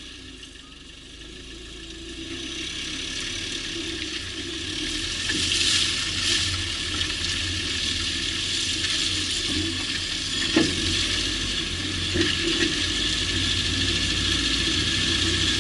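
Peugeot 605 on the move: a steady tyre and road hiss that builds over the first few seconds, with a sharp knock about two-thirds of the way through and two more a moment later. The knocks come from the car's right rear anti-roll bar.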